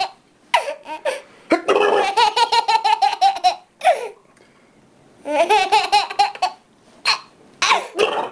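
Baby belly laughing in several bursts of rapid, pulsing chuckles separated by short pauses, the longest burst lasting about two seconds.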